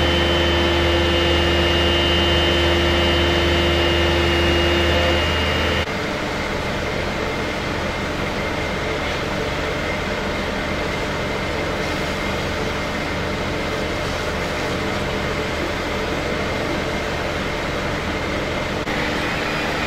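Steady engine noise of fire-service vehicles idling. About six seconds in, the sound changes abruptly as a steady hum drops away and the noise becomes slightly quieter.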